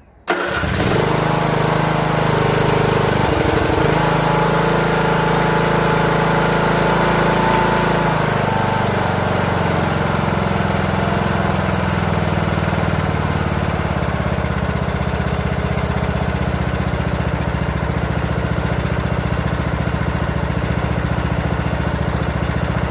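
Craftsman T110 riding mower's engine starting right away on a fresh tune-up with a new spark plug. Its speed wavers for the first several seconds, then it runs steadily.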